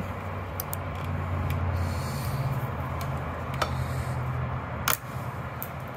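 Handling noise as cables and a cut cable tie are worked free by hand at a scooter's stem: rubbing with a few light clicks, the sharpest near the end, over a steady low hum.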